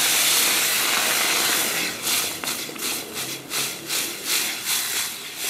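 Hot stainless steel pot hissing as thick blended chickpea purée is poured into it. About two seconds in, a spatula starts stirring the pot in quick, even strokes, about three or four a second.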